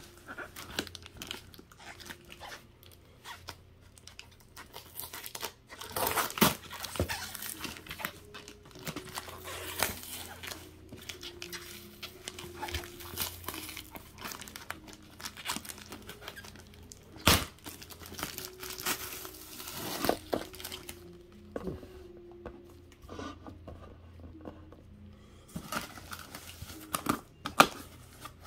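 Packing tape being cut with a blade and peeled off a cardboard box: irregular crinkling, tearing and scraping with sharp snaps and clicks, then cardboard flaps being folded open and plastic wrap rustling near the end.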